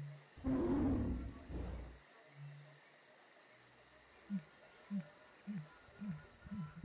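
Outro sound effects of a wild, tropical night: a loud animal roar lasting about a second and a half, starting half a second in, over the steady chirping of insects. Near the end come five short low calls about half a second apart.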